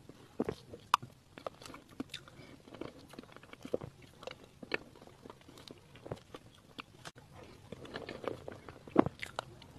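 Close-miked mouth sounds of eating soft, creamy cake from a spoon: a run of wet, sticky clicks and lip smacks, with a sharper click about a second in and another near the end.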